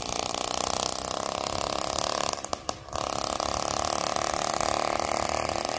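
80cc two-stroke bicycle motor kit engine running under way, straight-piped through a flex tube with no muffler. It has a fast, buzzy firing note, which dips briefly a little past halfway and then picks up again.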